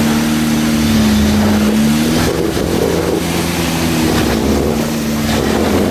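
Off-road 4x4's engine running steadily under load while climbing rock ledges; its note shifts about two seconds in, and rougher noise comes in with it.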